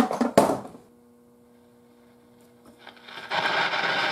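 A Philco tube radio's speaker giving off a loud rushing, crackling noise that comes up about three seconds in, after a stretch of faint steady hum. The restorer puts this noise down to moisture causing leakage in the radio's IF transformers. A few clinks and knocks come in the first second.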